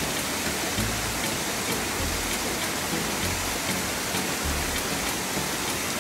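Small waterfall splashing down a face of dark rock: a steady, even rush of falling water.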